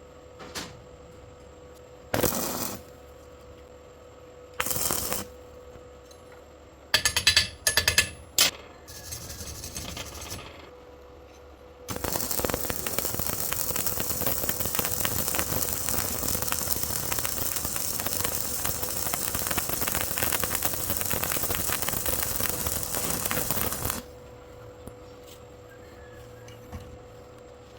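Stick welding arc: several short bursts as the arc is struck and broken, then a steady crackling arc for about twelve seconds that cuts off suddenly.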